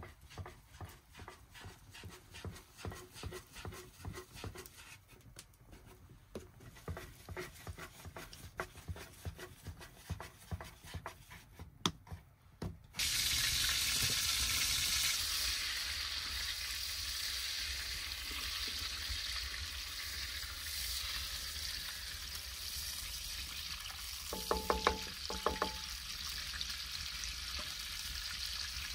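A run of light clicks and knocks, then from about halfway a sudden steady sizzle of food frying in hot fat in a pan.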